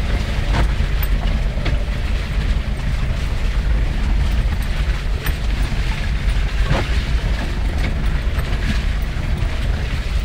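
Off-road 4x4 vehicle running with a steady low engine rumble, with a few scattered knocks and rattles over it.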